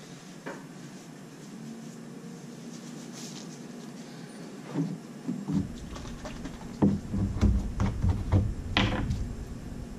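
Handling noise on a wooden workbench as disposable gloves go on and a jar of leather balm is picked up and worked: a quiet stretch with a few faint clicks, then knocks, bumps and rubbing from about halfway in.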